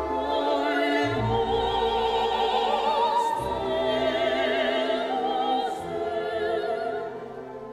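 Soundtrack music: an operatic voice singing long notes with a wide vibrato over orchestral accompaniment, fading somewhat near the end.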